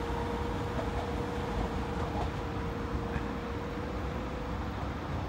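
Trenord regional push-pull train departing, its E.464 electric locomotive pushing from the far end: a low rumble with a thin steady electric whine that fades out about four and a half seconds in as the train draws away.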